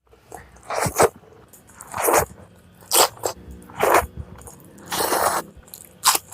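Close-miked crunchy bites and chewing, a crisp crunch about once a second.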